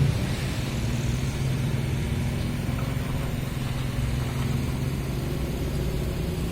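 Excavator's diesel engine easing off right at the start, then running steadily at a low, even note.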